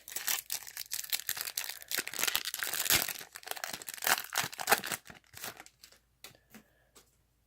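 Trading-card pack wrapper being torn open and crinkled for about five seconds, then a few light clicks as the cards are handled.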